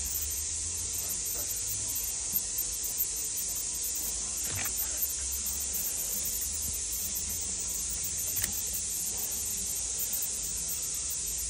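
Steady background hiss with a low hum, broken by a few light metallic clicks of pliers and small steel parts being handled.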